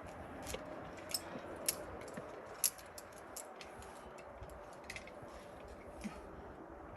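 Scattered sharp, irregular clicks and light clinks, about a dozen, from a climber's metal gear (carabiners and quickdraws on a harness), over a faint steady hiss.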